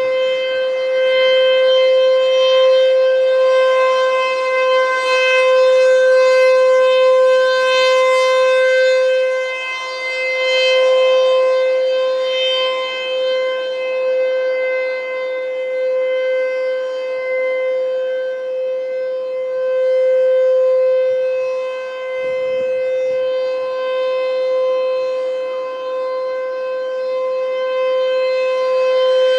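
ASC T-128 outdoor warning siren sounding a steady full-alert tone at full speed: one unchanging pitch with a stack of overtones. Its loudness swells and dips every several seconds.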